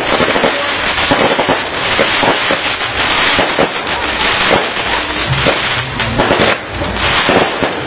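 Fireworks going off in a rapid, continuous string of sharp cracks and bangs.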